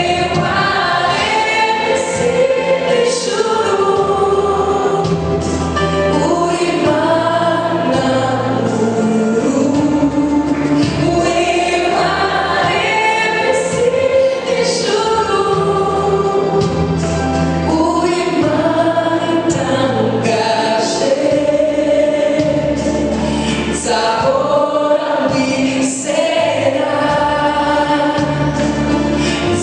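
Live gospel music: a choir singing a flowing melody over instrumental accompaniment.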